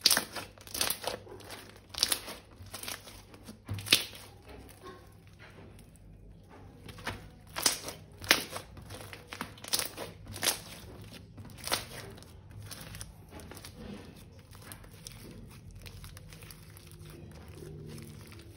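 Slime and its plastic wrappings being handled by hand: a run of irregular crackles and crinkles, dense over the first dozen seconds and thinning out toward the end.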